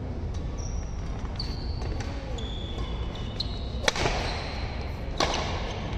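Badminton rally: several short, high squeaks of court shoes on the synthetic court, then a sharp crack of a racket hitting the shuttlecock about four seconds in, as the near player jumps for an overhead shot. Another hit follows about a second later.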